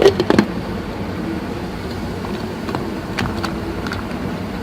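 Electric blender running steadily, blending a strawberry, mint and water juice, with a few knocks as it starts.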